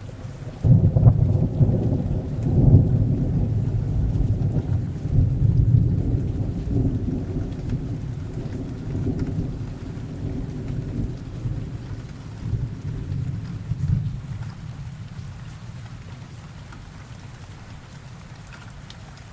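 Rain sound effect with a long rolling rumble of thunder that starts about a second in and slowly fades away, leaving steady rainfall.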